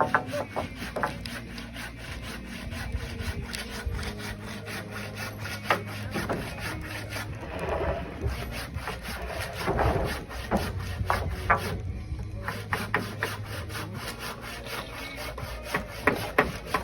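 Construction hand-tool work: a run of quick scraping strokes with sharp clicks and occasional knocks, over a steady low hum.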